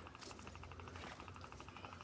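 A steady, fast pulsing trill of insects, many even pulses a second, over a faint low rumble.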